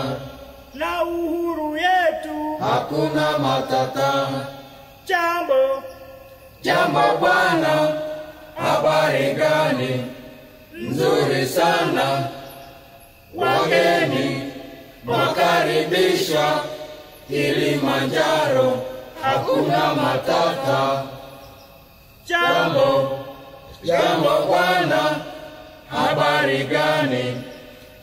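A group of voices chanting a song in short, rhythmic phrases that repeat about every second and a half.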